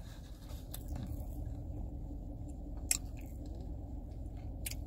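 A person chewing a mouthful of hamburger close to the microphone, with a few short sharp clicks, the loudest about three seconds in.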